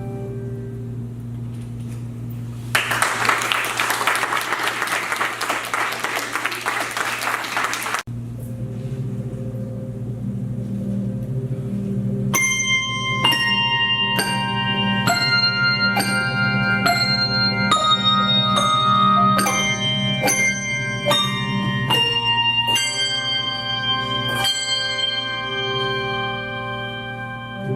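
Handbells: a held chord dies away, then audience applause for about five seconds, cut off suddenly. A handbell ensemble then begins a new piece, with low bells sounding and, from about halfway through, a run of struck notes, each left ringing over the next.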